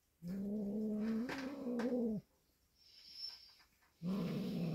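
A cat making two long, low, drawn-out calls, each about two seconds, the second starting about four seconds in.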